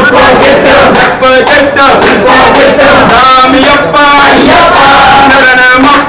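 A group of men chanting loudly together in short repeated phrases, a devotional chant at an Ayyappa temple worship.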